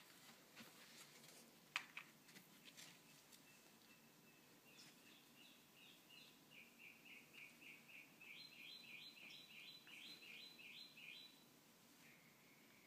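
A small bird chirping faintly: a quick, regular series of short high chirps, about three a second, from about five seconds in until about eleven seconds. Before that come soft scuffling taps, with one sharp tap just before two seconds in, from two cats wrestling on carpet.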